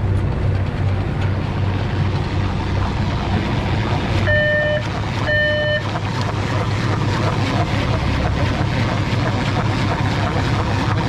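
Crab boat's engine running with a steady low drone as a crab pot is hauled up through the davit block. Two short electronic beeps, about a second apart, sound near the middle.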